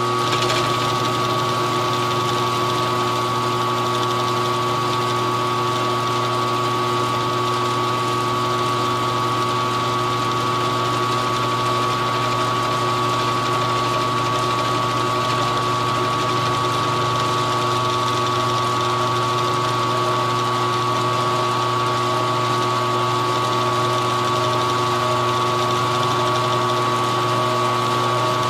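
Milling machine running steadily while its cutter takes a flattening pass across a cast aluminum part: an even motor hum with a steady whine over it.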